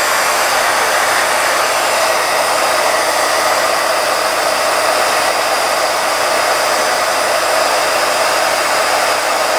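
Embossing heat gun running, a steady rush of fan and air noise as it blows hot air to re-melt hot glue under the paper pieces.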